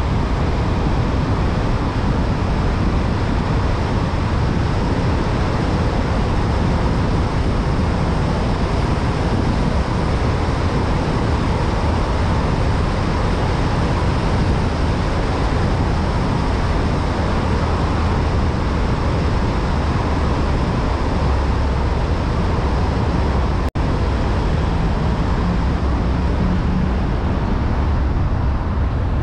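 Steady road and engine noise of a car driving through a road tunnel, with a momentary break in the sound near the end.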